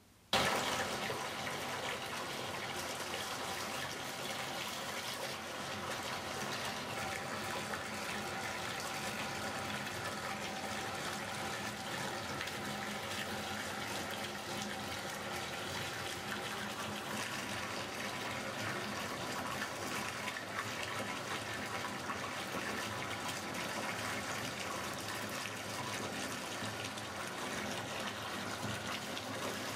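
Bath tap running full, water pouring steadily into a filling bathtub.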